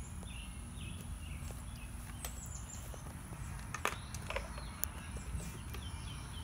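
Outdoor ambience: a steady low rumble with faint bird chirps. A few sharp clicks come just past the middle.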